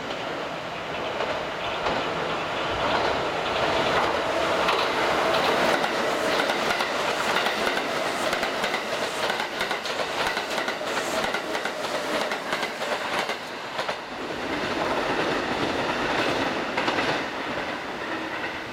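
Kintetsu 8600-series and 8400-series electric train running through the station, wheels clacking over the rail joints. It grows louder as it approaches, is loudest while the cars pass close by, and fades away near the end.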